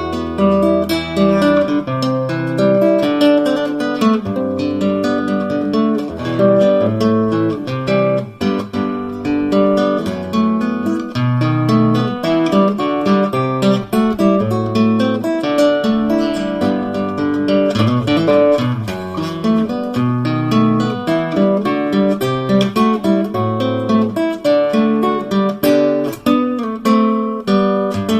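Acoustic guitar played solo, fingerstyle, with a melody over bass notes. The guitar is freshly serviced and being played to test it.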